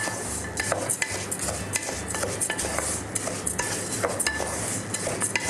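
Wooden spatula stirring dry, unsoaked basmati rice and whole spices in oil in a pot, scraping and rattling the grains against the pot in quick strokes, about three a second. The rice is being heated through in the oil before stock is added.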